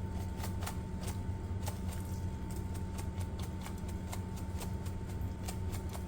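Light, irregular clicks and taps of kitchen handling, about two a second, over a steady low hum.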